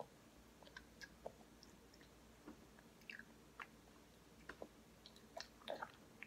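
A baby chewing and gumming a piece of grilled cheese, soft wet mouth smacks and clicks, coming more often near the end.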